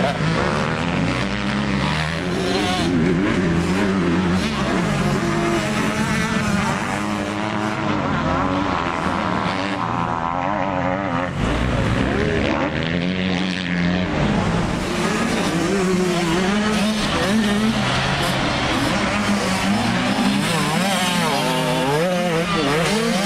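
Motocross dirt bike engines running on the track, revving up and dropping back again and again as the riders work through the course.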